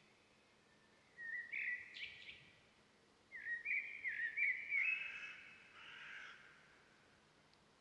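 Birds calling: two bouts of quick chirping phrases, one about a second in and a longer one from about three seconds in, over faint outdoor ambience.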